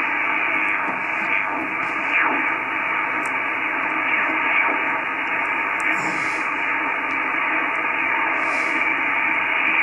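Icom IC-746PRO HF transceiver's speaker hissing with 40-metre band noise in lower sideband, cut off above the voice range, as the receiver is tuned steadily down the band. A few faint tones and garbled sideband snatches slide past as the tuning crosses signals.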